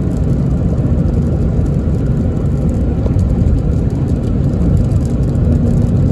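Steady low rumble of a car driving on a rain-soaked freeway, heard from inside the cabin: engine and tyre noise on wet pavement, with faint ticking higher up.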